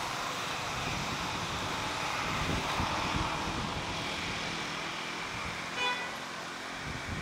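Steady outdoor background noise, like distant traffic or wind in foliage, with one short pitched toot about six seconds in.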